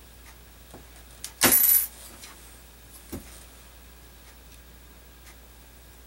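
Metal shears snipping thin aluminum sheet: one loud cut about a second and a half in, lasting under half a second, with lighter clicks of the blades before and after.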